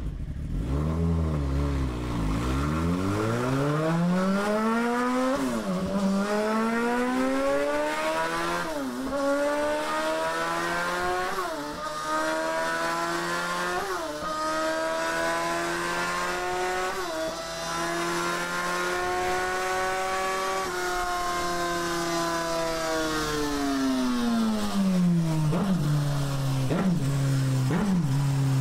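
Whine of a 1000 W electric fat-bike hub motor under throttle. Its pitch drops at first, then climbs slowly as the bike gathers speed, dipping briefly every few seconds, holds high, and falls away near the end as the bike slows, over a steady rush of wind and tyre noise.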